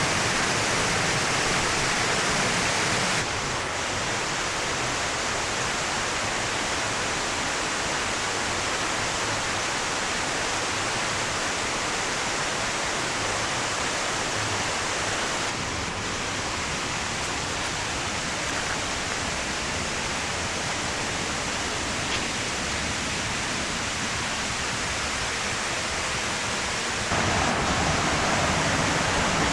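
Waterfall: water falling and rushing in a steady, even wash of noise, which changes abruptly in loudness and tone three times (about three seconds in, about halfway, and near the end).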